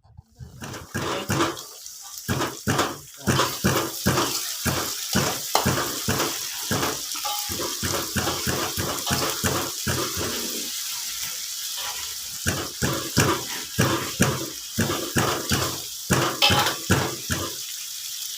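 Tap water running steadily into a basin, with rapid repeated scraping strokes, about two to three a second, as fish are cleaned under the tap.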